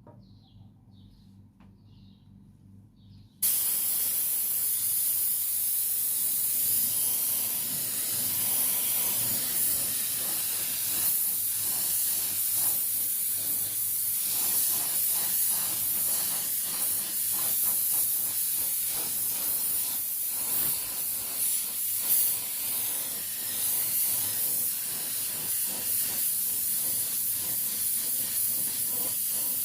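A loud, steady spraying hiss that starts abruptly about three seconds in. Before it there are a few faint high chirps.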